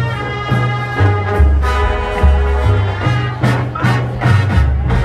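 Marching band playing a swing arrangement: brass over a walking bass line, with drum hits.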